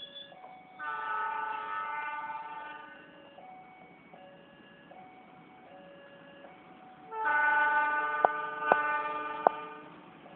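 CC 206 diesel locomotive's horn sounding two long chord blasts, the first about a second in and the second about seven seconds in, with a few sharp clicks during the second. Beneath them a level-crossing warning alarm alternates steadily between two notes.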